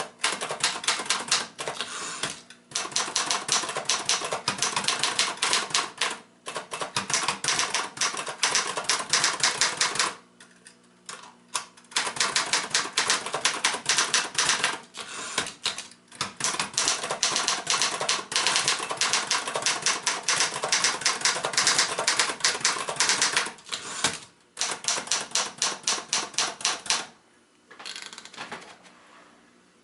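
Remington Ten Forty portable typewriter being typed on: fast runs of key strikes with short pauses and a longer break about ten seconds in. The typing stops near the end, leaving only a few faint clicks.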